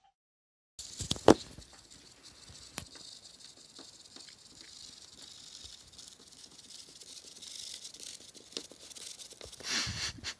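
Light tapping and pattering of an Egyptian gerbil's claws scurrying over a hard floor, with one sharp knock about a second in and a short rustling swell near the end.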